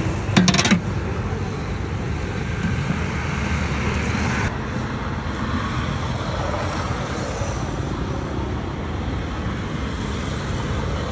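Steady road traffic noise, with a quick clatter of a few sharp clacks about half a second in.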